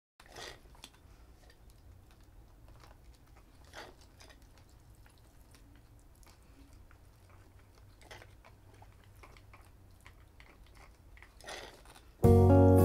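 Faint, occasional crunching and rustling of gritty potting mix and succulents being handled in a tin-can planter. Background music starts suddenly near the end.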